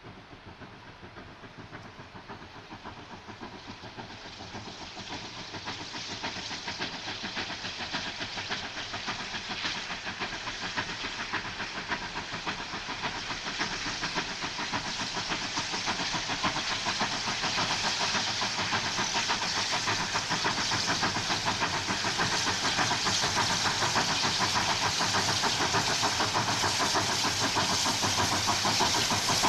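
Durango & Silverton K-36 narrow-gauge steam locomotive No. 480 approaching at low speed, its steam and running noise growing steadily louder as it draws near.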